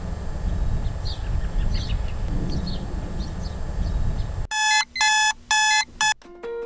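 Steady outdoor rumble like wind, with a few faint high chirps. About four and a half seconds in, a digital alarm clock beeps three times, sounding the wake-up alarm, and soft plucked harp-like music starts just after.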